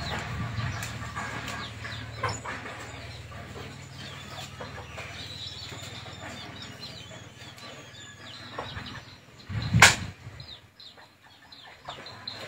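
Faint bird calls over a low steady hum, with one loud sharp knock a little before ten seconds in.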